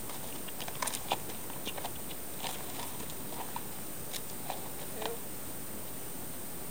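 Irregular crunches and clicks of a horse's hooves and a person's footsteps on hard-frozen arena ground, over a steady hiss. They thin out after about five seconds.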